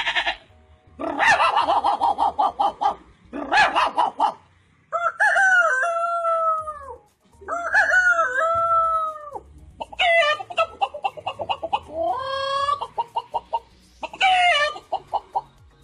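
A man imitating a chicken with his voice: bursts of fast clucking alternate with drawn-out rooster crows that rise and fall in pitch, repeated several times with short pauses.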